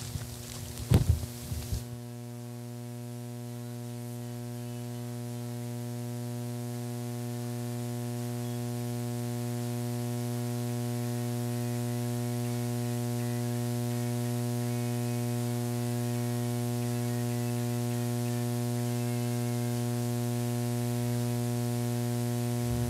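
Steady electrical mains hum, a low buzz with many overtones, slowly getting louder. A few knocks in the first two seconds, the loudest about a second in.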